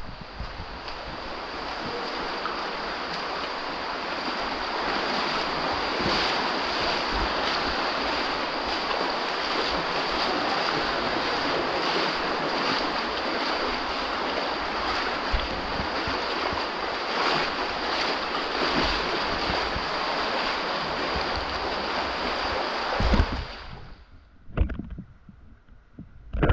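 Loud, steady rushing of floodwater, which stops suddenly about three-quarters of the way through, followed by a few sharp knocks.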